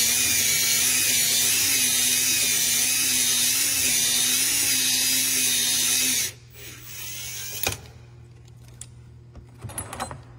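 Power drill spinning an adjustable cylinder hone in the WD-40-lubricated bore of a Honda GX160, a steady whine with the stones scraping the cylinder wall to put in the crosshatch; it stops suddenly about six seconds in. A few light clicks follow as the hone is drawn out of the bore.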